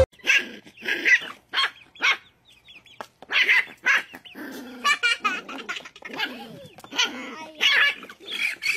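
Puppy yapping in short, high-pitched barks, about a dozen spread over several seconds, as it defends its food bowl from a rooster.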